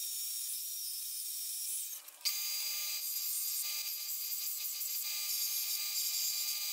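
A steady high hiss of a portable band saw cutting 1/8-inch steel strap, then, after a break at about two seconds, a belt sander running with a steady hum of tones while the strap's cut edge is ground against the abrasive belt, a continuous rasping rub of steel on grit.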